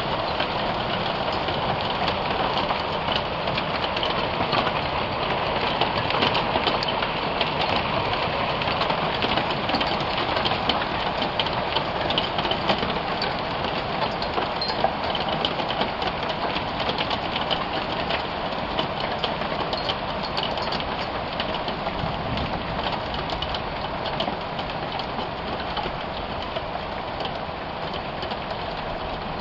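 Marble-size hail mixed with rain coming down hard, a dense steady patter of many small hits, easing slightly near the end.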